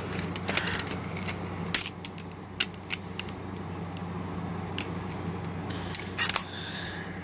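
Clear plastic DVD disc trays of a box set being handled: irregular clicks and taps of hard plastic, some sharper than others, over a steady low hum.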